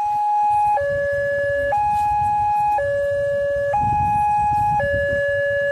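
Railway level-crossing warning alarm sounding a steady two-tone hi-lo signal, switching pitch about once a second, the warning that the barrier is closing for an approaching train. A low rumble runs underneath.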